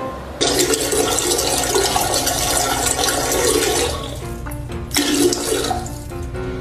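Toilet flushing: a sudden rush of water starts about half a second in and eases off after about four seconds, with a second surge of water near the end.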